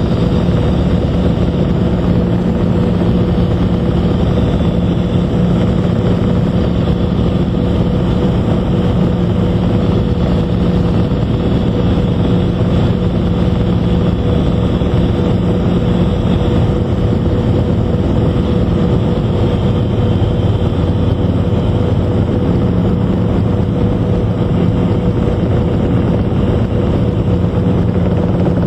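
Cabin noise of a Robinson R22 helicopter with its four-cylinder Lycoming piston engine and rotor running: a steady, even drone with a couple of held tones.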